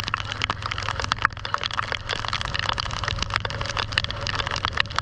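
Heavy rain hitting the microphone as dense, irregular ticks and crackles, over the steady low rumble of a motorcycle on the move.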